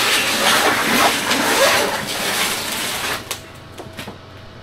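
Packaging and handling noise from unpacking a heavy battery module: a loud, rushing rustle and scrape for about three seconds, then a few sharp clicks as it stops.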